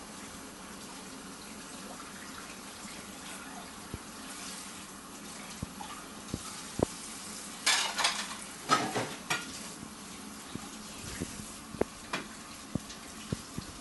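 Kitchen clatter: dishes and utensils clinking in scattered short clicks over a steady hiss, with a louder run of clattering about eight seconds in.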